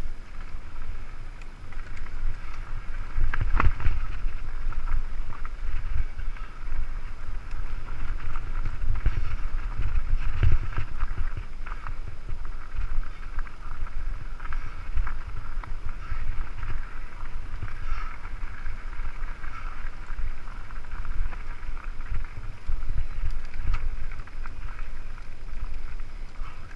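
Mountain bike rolling fast down a rough dirt singletrack, heard from the bike itself: a continuous rumble and rattle over the bumps, with irregular knocks, the sharpest about three and a half seconds in.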